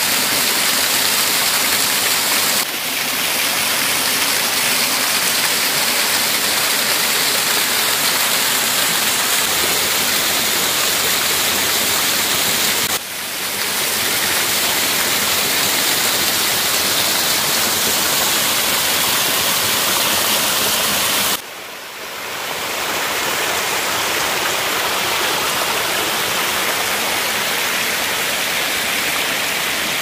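Small waterfall splashing steadily as thin streams of water fall over a mossy rock face: a continuous, full rushing hiss that briefly drops in level three times.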